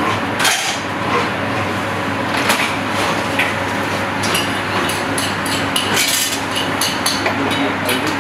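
Kitchen clatter: frequent short, sharp clinks and knocks of metal utensils and dishes over a steady machine hum.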